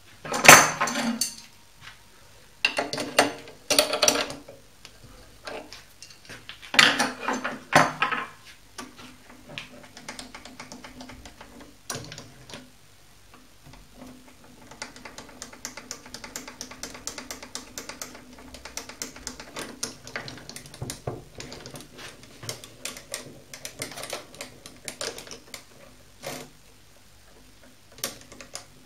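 Metallic clattering and rattling from an Optimum D180 mini lathe set up for milling aluminium. Several loud bursts in the first eight seconds, then lighter, rapid ticking over a faint steady hum.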